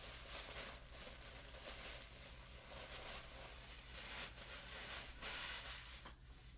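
Tissue paper rustling and crinkling as it is unwrapped from skeins of yarn, faint and irregular, swelling and fading several times. A low steady hum lies underneath.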